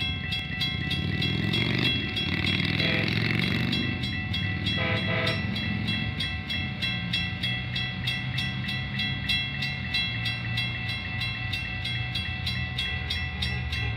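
Railroad crossing signal bells ringing steadily in a rapid, even beat. An approaching Metra commuter train sounds its horn in short blasts about three and five seconds in, over a low rumble.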